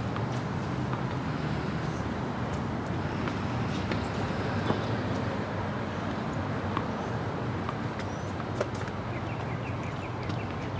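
Steady outdoor background noise with a low hum and a few faint, scattered clicks; near the end comes a quick run of faint high ticks.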